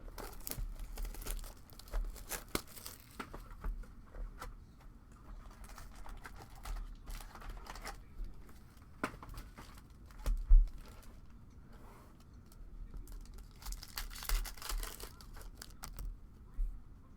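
Trading-card box and foil packs being torn open, with wrappers crinkling in bursts and scattered small clicks. A single sharp thump comes about ten seconds in.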